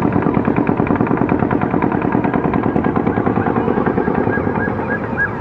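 Rapid automatic rifle fire in one long unbroken burst, about nine or ten shots a second.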